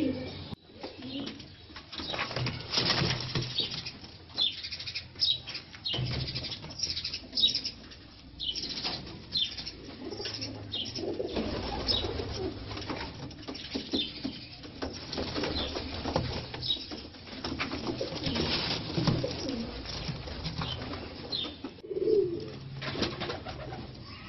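Fantail pigeons cooing, with repeated wing flaps and rustling and many short high chirps.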